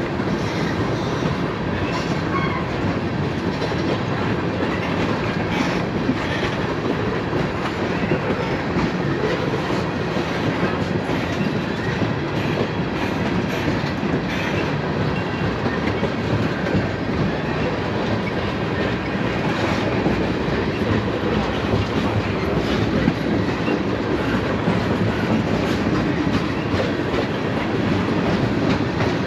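CSX freight train rolling steadily past, its cars' wheels rumbling and clicking along the rails without letting up.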